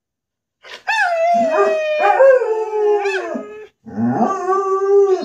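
A 10-month-old German shepherd howling. A long howl starts about a second in and slides down in pitch, then a second, steadier howl follows near the end.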